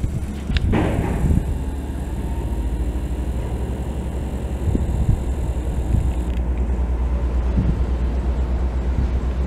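Large diesel engine idling: a steady low rumble with an even, rapid pulse. A couple of brief rushing noises come through in the first second or so.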